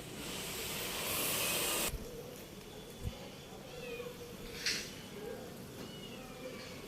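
A loud hiss that cuts off suddenly about two seconds in, followed by a few faint high calls that slide in pitch, like those of a small animal.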